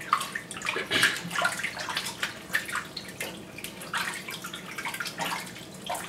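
Water splashing and sloshing in a plastic bowl as hands wash a batch of leafy greens, in short irregular splashes.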